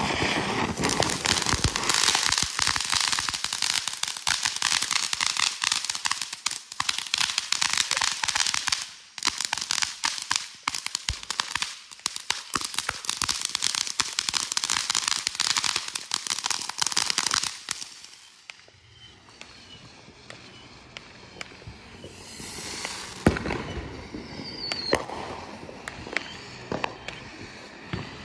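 Consumer firework going off in a dense, rapid stream of crackling pops for about eighteen seconds, briefly thinning about nine seconds in. After that it dies down to scattered pops and short bursts of hiss.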